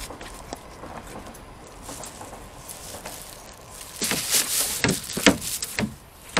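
A plastic bag rustling as it is pushed through the swing lid of a plastic trash bin. About four seconds in there is a burst of crinkling with a few knocks as the lid swings.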